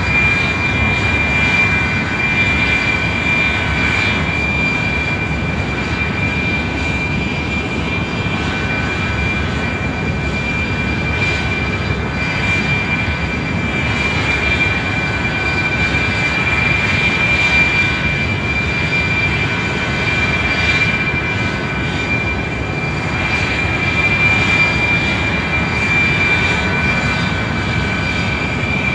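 Airplane engine noise: a steady, unchanging rush with a constant high whine over it.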